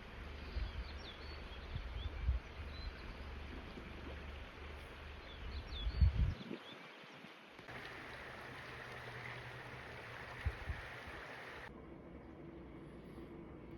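Small birds chirping in the trees over low wind buffeting on the microphone. About halfway through this gives way to a steady rushing noise.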